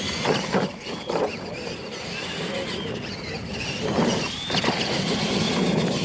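Radio-controlled monster trucks racing on a dirt course, their electric motors whining, with a few knocks as they run over ramps and the dirt jump.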